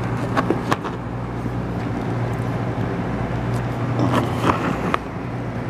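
A white plastic electric alarm clock case being handled close to the microphone: a few short knocks and rubbing sounds, over a steady low hum.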